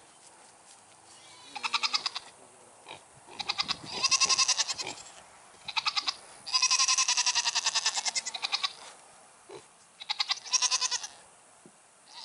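Goats bleating, about five wavering calls from several animals in turn, the longest held for about two seconds midway.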